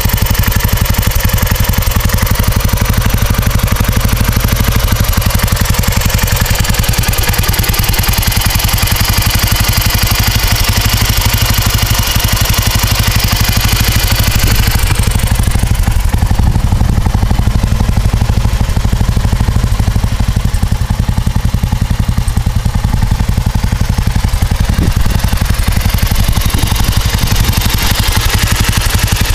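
A 2005 Indian-built Enfield motorcycle's air-cooled engine idling steadily, heard close up as a rapid, even train of firing pulses. The higher-pitched hiss fades about halfway through.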